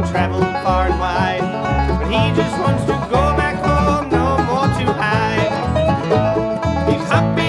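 Bluegrass band music, with banjo prominent over guitar and bass.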